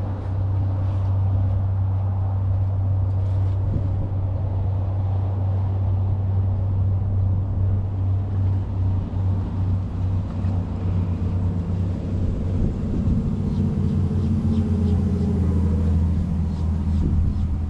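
Steady low rumble of road traffic, with a vehicle's drone swelling over the last few seconds.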